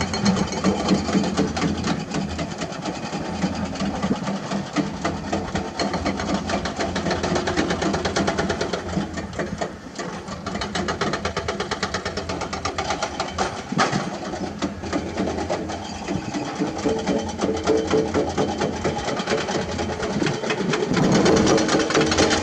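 Excavator's diesel engine running at work with a fast, even, rattling clatter. Music comes in near the end.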